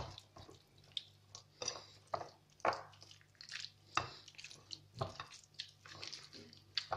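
Hand rubbing and squeezing pieces of meat in an oily herb-and-spice marinade in a bowl: soft, irregular wet squelches, about one or two a second.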